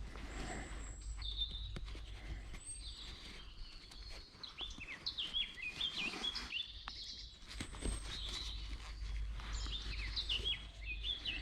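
Songbirds singing, with many short, quickly sliding chirps and trills, busiest from about five seconds in. A few faint light knocks and clicks sound under the birdsong.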